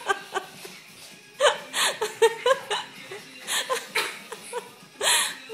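A person laughing in strings of short chuckles, with a sharp breathy burst of laughter near the end.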